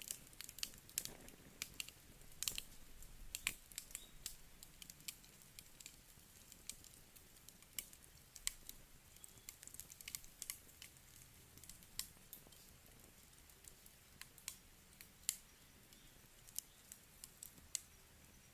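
Wood fire crackling: irregular sharp pops and snaps from burning logs over a faint steady hiss, busiest in the first few seconds with a few louder pops.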